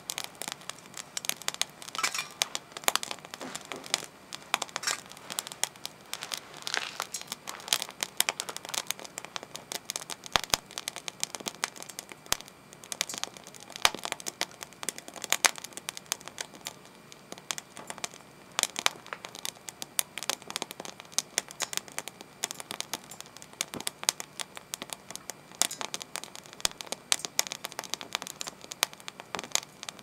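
Split kindling burning in a stainless-steel secondary-combustion wood stove, crackling and popping irregularly with many sharp snaps.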